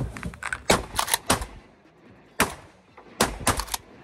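Several shotguns firing in quick succession, in three bursts: a rapid cluster about a second in, a single shot past the middle, and another cluster near the end.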